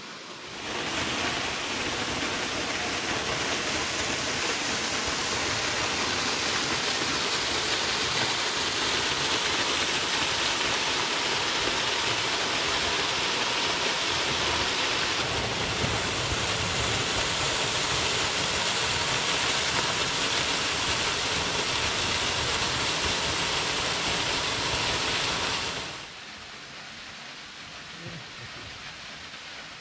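East Bee Branch Falls, a thin waterfall dropping from a high rock ledge onto boulders, splashing with a steady rush of falling water. The sound cuts off suddenly near the end.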